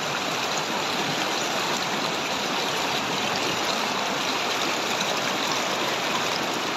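A rocky mountain river rushing steadily through shallow rapids.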